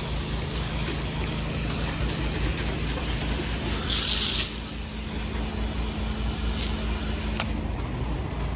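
8-gallon-per-minute pressure washer running, its engine and pump giving a steady low pulsing rumble under the hiss of a shooter-tip spray applying sodium hypochlorite solution. The spray hiss swells briefly about four seconds in and cuts off sharply near the end as the trigger is released.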